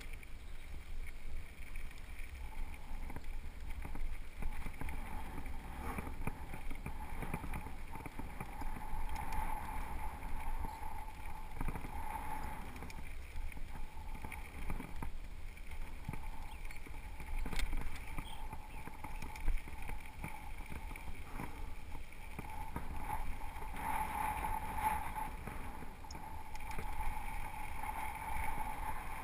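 Mountain bike riding over gravel singletrack: tyres crunching on loose stones, the bike rattling over bumps, and wind buffeting the camera microphone, with a hum that swells and fades.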